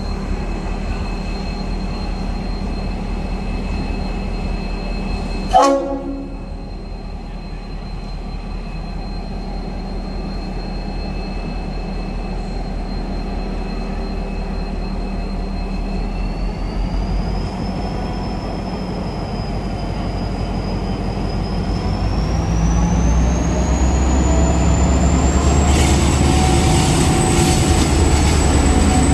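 G class diesel-electric locomotive running past at low speed with a steady low engine rumble, which grows louder in the last few seconds as it draws alongside. A short horn toot sounds about five and a half seconds in, and a high whine steps up in pitch twice in the second half.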